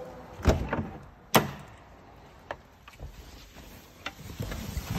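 Car door of a Mercedes SL500 being opened: two sharp clicks or knocks about a second apart as the handle and latch release, then a few lighter clicks and a low rumble near the end.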